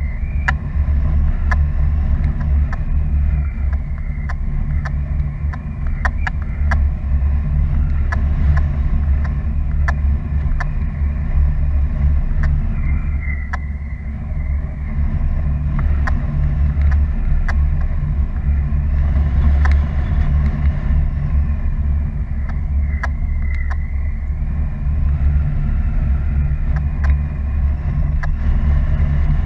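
Wind rushing over an action camera's microphone in paraglider flight: a loud, steady low rumble with scattered clicks. A thin high tone runs through it, slowly wavering and dipping in pitch.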